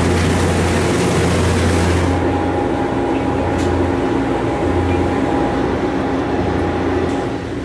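High-speed passenger ferry's engines running steadily under way, a constant low hum with a few held tones. For the first two seconds it is heard on the open deck with a rush of wind and water over it; then, from inside the passenger cabin, the hiss drops away and only the muffled engine hum remains.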